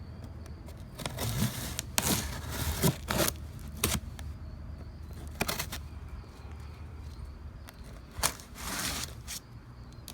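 A cardboard shipping box being cut and pulled open by hand: a blade scraping through packing tape and cardboard, with tearing, rustling and irregular knocks and clicks, the longest tearing scrape near the end.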